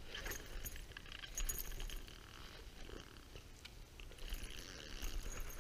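Faint handling noise: scattered light clicks and rustles, a little louder about a second and a half in, over a steady low rumble.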